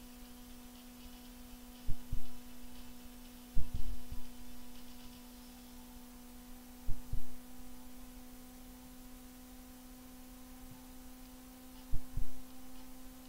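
Low dull thumps in short pairs and one triplet, four groups in all, over a steady electrical hum.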